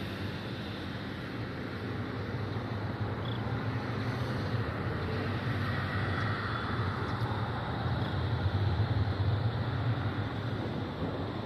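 Boeing 737 twin jet engines at take-off power: a steady rumble and roar that swells to its loudest about nine seconds in, then eases slightly.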